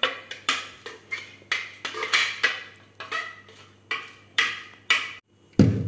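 Metal spoon scraping and knocking inside a glass blender jug to get the last of a blended marinade out, a quick run of clinks about two a second. A duller, lower thump comes near the end.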